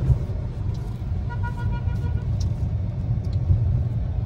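Inside a car's cabin, a steady low engine and road rumble while the car runs, with a short steady pitched tone lasting under a second about a second and a half in.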